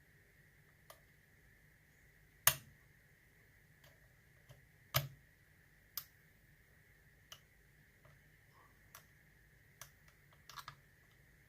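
Lock pick and tension wrench in the keyway of a Yale 840 series padlock, giving irregular small metallic clicks as the pins are worked one by one with the core in a false set. Two louder clicks come in the first half, and a quick cluster of clicks comes near the end.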